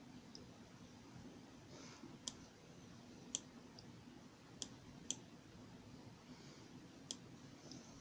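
Five sharp single clicks at uneven intervals over a faint, steady low hum, with a couple of fainter ticks between them.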